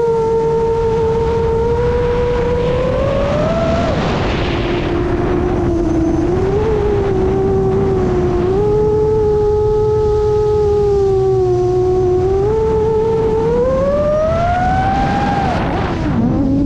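Whine of a 7-inch FPV quadcopter's four brushless motors (iFlight XING 2806.5, 1300 KV) spinning three-blade 7-inch props, over a low rumble. The pitch holds fairly steady with small wavers, climbs with throttle from about two and a half seconds in and drops off sharply near four seconds, then climbs again from about thirteen seconds and drops off sharply near the end.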